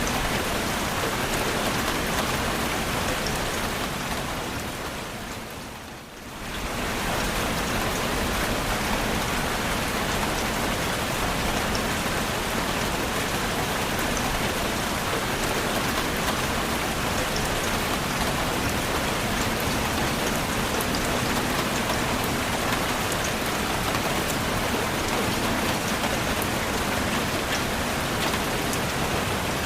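Steady rain falling. About six seconds in it fades down briefly and swells back to the same level.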